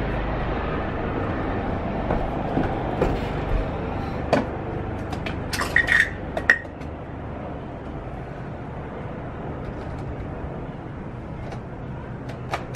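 Helicopter approaching a hospital helipad: a steady rotor and engine rumble that fades somewhat after the first few seconds. A few short, high clicks and chirps come about halfway through.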